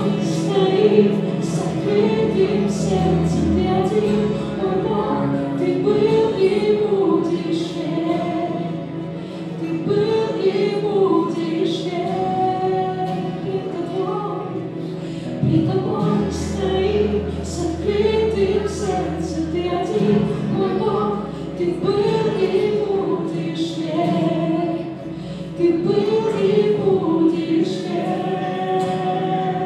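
Live Christian worship song: a mixed group of men and women singing together into microphones, accompanied by acoustic guitar, electric keyboard and bass guitar, with long held low notes.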